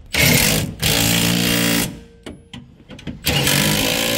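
Milwaukee Fuel cordless half-inch impact wrench with a 24 mm socket tightening two chassis bolts: two bursts of about two seconds each, the second starting about three seconds in.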